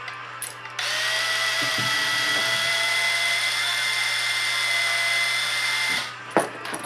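Power drill running steadily at one speed for about five seconds. It starts about a second in and stops abruptly near the end.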